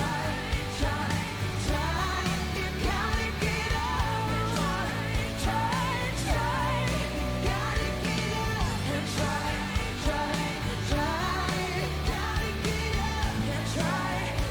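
Background pop song with a singing voice over a band and a steady beat.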